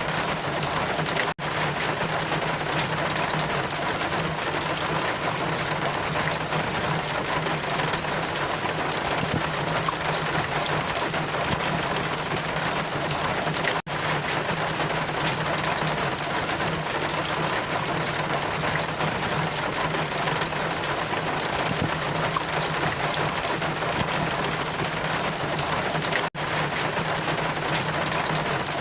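Steady rain falling, a dense even hiss with no distinct drops standing out. The sound cuts out for a split second three times, at even intervals about twelve seconds apart.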